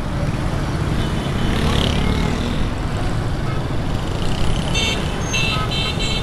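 Busy street traffic with motorcycle and van engines making a steady rumble, and a vehicle horn giving four quick toots close together near the end.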